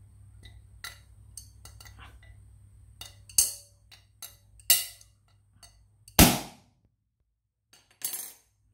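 Adjustable wrench knocking against the steel valve head of a pressurised aluminium air tank, a string of metal knocks with louder blows about three and a half, four and a half and six seconds in, the last the loudest and ringing briefly. The knocks are a leak test of the freshly resealed valve.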